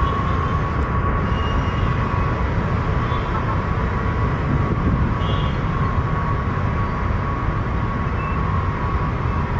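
Ilyushin Il-76's four turbofan jet engines running loud and steady: a deep rumble under a constant high whine.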